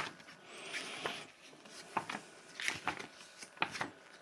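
Paper rustling as a printed instruction manual and sheets are handled and flipped: a soft rustle in the first second, then several short crisp crackles in the second half.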